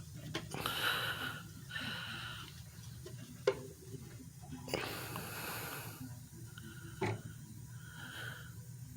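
Norton door closer on a test rig closing, with a few sharp knocks: the loudest about three and a half seconds in, another about seven seconds in. Soft hissing comes and goes twice.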